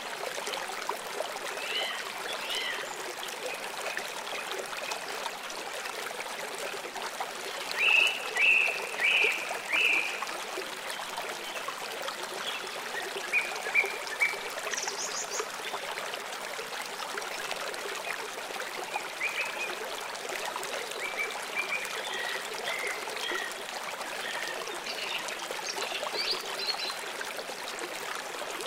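A steady hiss like trickling water, with short high bird-like chirps in quick groups of three or four, loudest about eight to ten seconds in.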